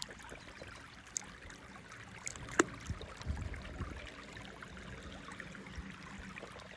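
Plastic toy cars and track being handled: faint scattered clicks and rattles, with one sharp click a little over two and a half seconds in and a soft low rumble just after it.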